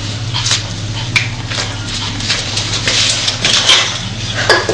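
Scattered light knocks and clinks of empty aluminium drink cans being handled and set down on a wooden floor, over a steady low hum; the loudest knock comes near the end.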